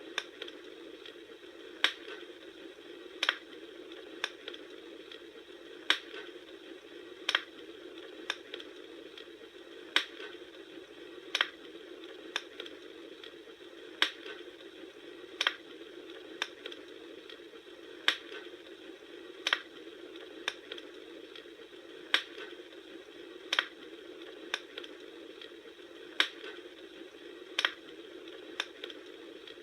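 Wood fire burning: a steady low hiss with sharp crackling pops about every second or so.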